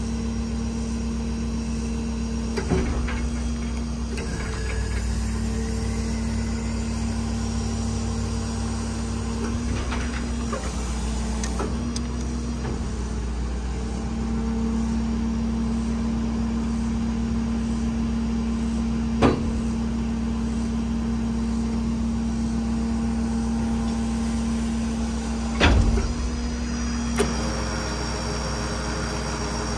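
Ford F-550 diesel running steadily with a hydraulic whine from the crane's hydraulics as the Stellar 5521 crane boom is moved. The whine dips and shifts pitch a few times, and several sharp knocks come through, the loudest near the end.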